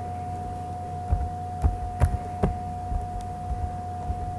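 Keystrokes on a computer keyboard: a handful of sharp clicks, roughly half a second apart, over a steady electrical hum with a constant tone.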